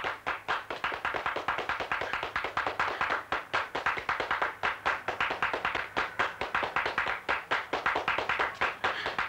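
A fast, uneven run of sharp taps or clicks, several a second, going on without a break.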